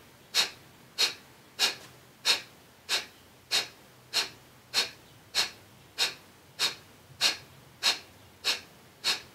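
Kapalbhati (breath of fire) breathing: short, forceful exhalations puffed out through the nose in an even rhythm, about three every two seconds, each a sharp hiss followed by a quiet gap as the belly pumps the air out.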